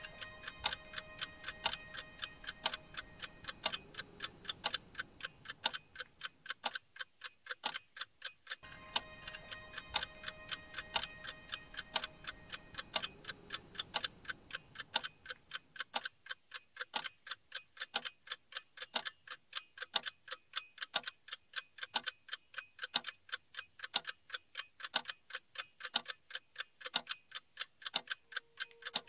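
A clock ticking steadily, a little over two ticks a second, over faint sustained music tones. The tones fade out, drop away about eight seconds in, come back, and fade again, while the ticking runs on unchanged.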